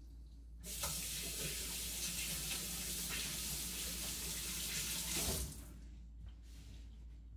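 Kitchen sink tap running as hands are washed under it. The water comes on just under a second in and is shut off at about five and a half seconds.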